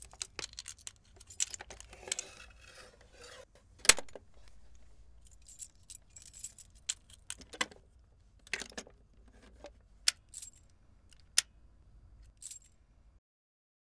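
A bunch of keys jangling with a series of sharp metallic clicks, the loudest about four seconds in, as a front-door lock is worked open.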